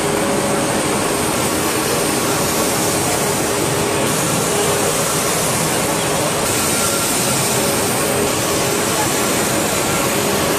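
CH 4070 semi-automatic band saw running and cutting through steel bar with coolant flowing over the blade: a steady hiss with a faint hum under it.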